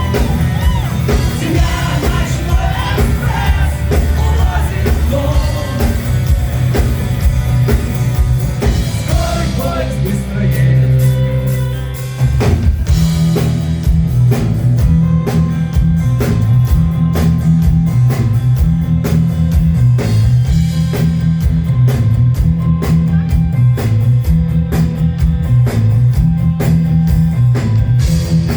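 Rock band playing live with singing. About ten seconds in the voice drops out and the music thins to a held note, then about twelve seconds in the band comes back in on a repeating bass line with drums, without singing.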